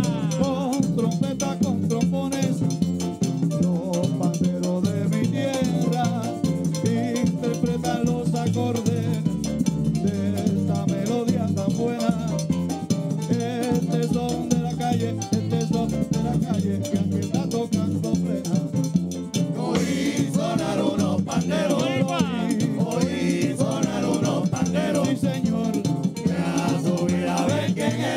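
Live Puerto Rican plena: panderos (hand-held frame drums) drive the rhythm over timbales and upright bass, with group singing that grows stronger about two-thirds of the way through.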